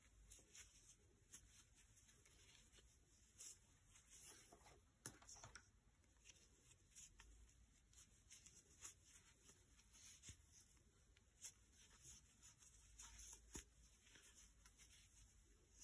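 Near silence with faint, scattered rustles and soft ticks of t-shirt yarn being worked on a 12 mm crochet hook, stitch after stitch.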